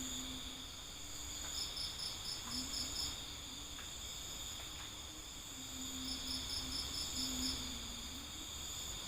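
Crickets chirping: a steady high trill, with a second cricket's song coming in twice as runs of about seven quick pulses. A low wavering hum sits underneath.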